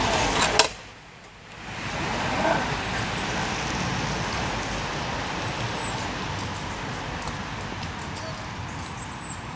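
A sharp knock just under a second in, then a steady rushing rumble from the zip wire's trolley running along its cable, slowly fading, with a few faint, brief high squeaks.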